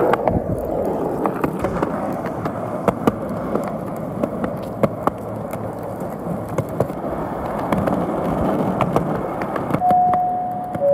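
Skateboard wheels rolling on a concrete sidewalk, a steady rumble broken by sharp clicks as the board crosses the joints. Near the end, a two-note falling chime, a navigation-style 'arrived' sound effect.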